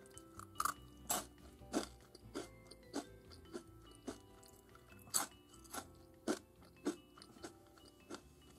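Crunchy baked edamame-flavoured snack sticks being chewed, one crisp crunch about every half second in a steady rhythm, with soft music underneath.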